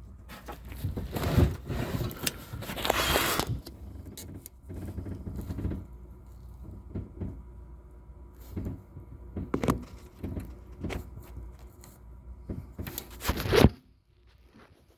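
Car-repair work sounds: scattered metal clinks, knocks and scrapes, with a stretch of loud hissing noise about a second in and a loud burst that cuts off sharply near the end, over a steady low hum.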